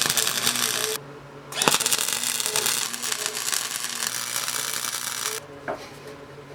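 Workshop tool noise: a loud hiss that runs for about a second, stops, then comes back for about four more seconds and cuts off sharply, over a faint steady hum.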